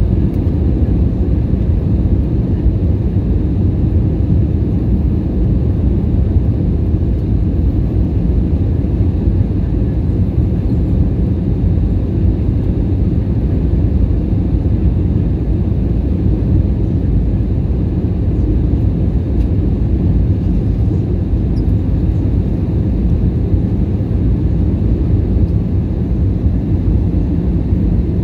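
Steady cabin noise inside an Airbus A320neo on descent: the Pratt & Whitney PW1100G geared turbofans and the airflow past the fuselage make an even, deep rumble that does not change.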